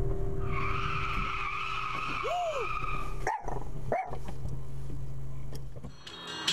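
Car tyres squealing under hard braking for about two and a half seconds over road and engine rumble, followed by a couple of brief sharp sounds.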